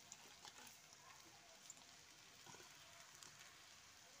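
Near silence, with faint scattered crackles of boiled noodles frying in a wok over a very low flame.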